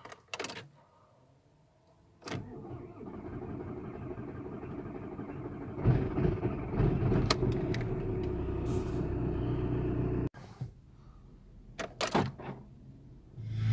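VW Golf 4 1.9 TDI (ALH) four-cylinder diesel engine starting up and running. The sound gets louder about six seconds in and cuts off abruptly about ten seconds in, followed by a few clicks.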